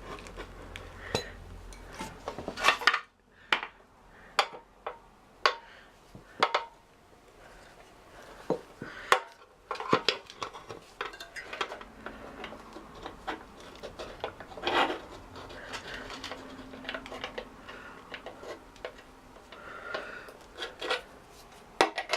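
Steel tyre levers and tools clinking and knocking irregularly against a motorcycle wheel rim as a new tyre is levered onto it, with a few louder knocks. A low hum stops about three seconds in.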